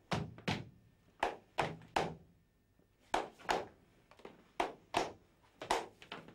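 Flamenco dancers' heeled shoes stamping out footwork on a hard floor: sharp, separate strikes at about two a second, with a brief pause a little before halfway, each ringing briefly in the vaulted room.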